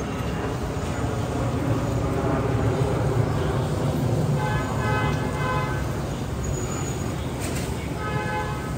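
Street traffic noise, with a motor vehicle running close by.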